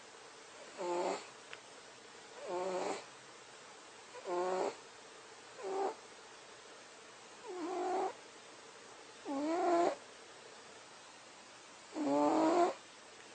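A sleeping cat snoring: seven short, pitched snores, one every one and a half to two seconds, with a longer pause before the last.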